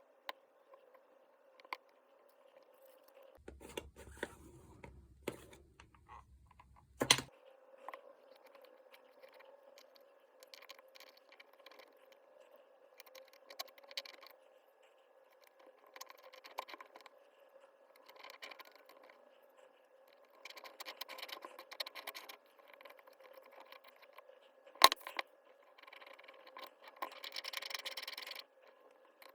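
Parts and tools of a hammer drill being handled on a bench during disassembly: scattered clicks, taps and scrapes, with a sharp knock about seven seconds in and another near twenty-five seconds, and a stretch of denser scraping near the end.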